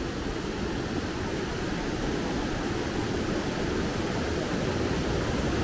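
Mountain river rushing over rocks in white water, a steady, unbroken rush.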